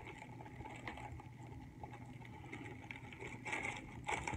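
Crinkling of a clear plastic bag as booklets are handled and slid out of it, louder near the end, with a few faint taps earlier. A steady low hum runs underneath.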